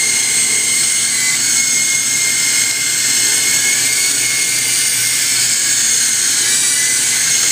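Small electric S032G mini RC helicopter in flight: its motors and spinning rotors give a steady, high-pitched whine with a few thin, even tones.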